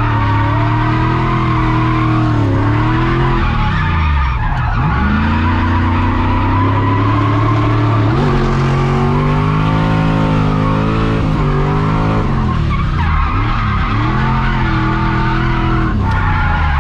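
Lexus 3UZ V8 swapped into a Nissan S13, heard from inside the cabin while drifting: the revs climb and fall several times, dropping sharply a few times. Tyres skid underneath.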